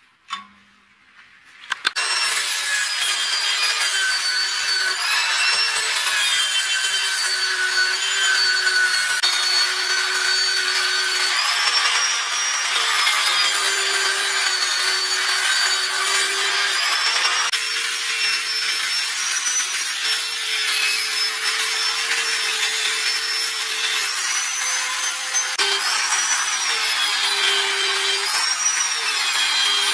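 A drill-driven sanding disc grinds a steel blade: a steady gritty hiss of abrasive on steel over a motor whine that wavers in pitch as the blade is pressed on and eased off. It starts about two seconds in, after a quiet moment with a single snip from end-cutting nippers.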